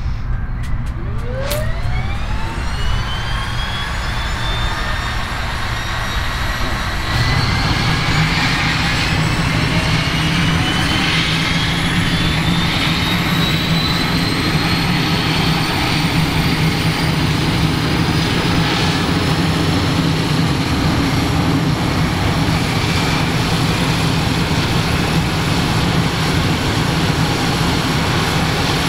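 Cessna 208 Caravan's PT6A turboprop engine starting: after a few clicks, a turbine whine rises steeply and keeps climbing as the engine spools up. About seven seconds in the sound steps up into a steady low drone under the whine as the engine lights and the five-bladed propeller turns.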